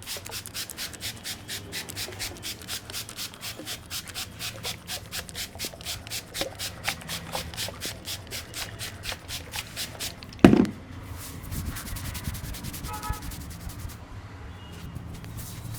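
Rapid, rhythmic rubbing or scraping strokes, about five a second, with one loud thump about ten seconds in, followed by faster, fainter strokes.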